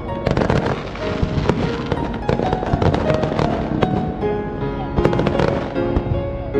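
Fireworks bursting in quick succession, many sharp bangs layered with the crackle of shells, over music.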